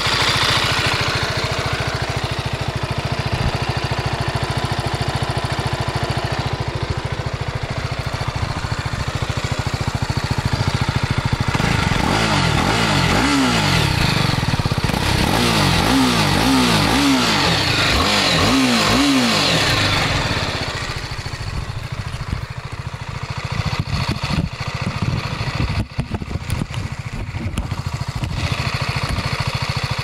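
BMW G 310 R's single-cylinder engine idling steadily. About twelve seconds in it is revved in a handful of quick throttle blips, each rising and falling in pitch. After the blips the engine is quieter, with a few knocks near the end.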